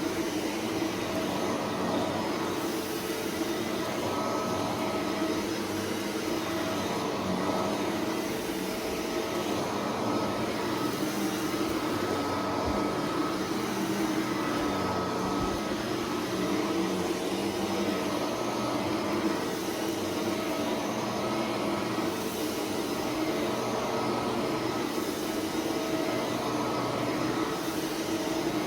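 Shark vacuum cleaner running steadily while vacuuming a rug covered in confetti and glitter, its motor giving a constant hum.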